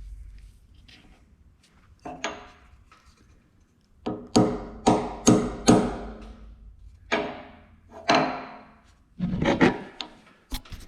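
Metal parts knocking and clinking together as they are handled and fitted, in a run of about ten sharp knocks with short ringing, four of them in quick succession in the middle.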